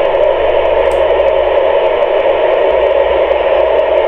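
Steady hiss of FM radio static from an amateur radio receiver tuned to the International Space Station's voice repeater, with no voice on the channel. The hiss is loud and confined to a narrow voice band.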